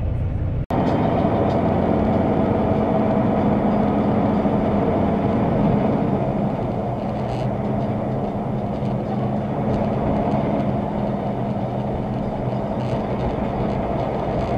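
Semi-truck's engine and road noise heard from inside the cab while cruising at about 40 mph: a steady drone that cuts in less than a second in.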